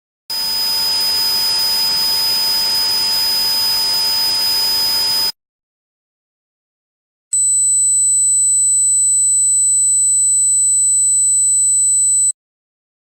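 Two simulated tinnitus sounds, each about five seconds long, with two seconds of silence between them. The first is a steady hiss with whistling tones in it. The second is a steady high-pitched ringing of several tones over a low hum.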